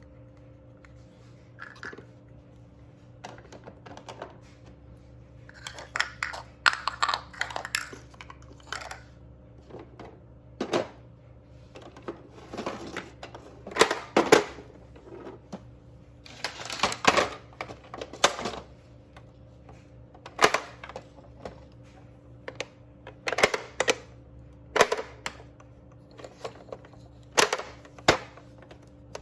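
Plastic shape-sorter pieces clicking, knocking and clattering at irregular intervals, some as single taps and some as short rattling bursts, over a faint steady hum.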